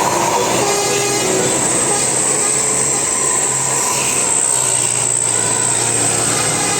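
The last notes of a bus's telolet musical air horn, then a large bus going past close by, its engine and road noise running steadily with a steady high whine.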